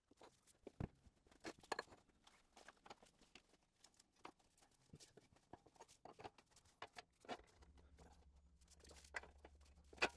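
Mostly quiet, with scattered faint clicks and light knocks of steel parts being handled: the grinder's work rest and tooling arm being taken apart and a flat steel plate picked up. A faint low hum comes in about three-quarters of the way through.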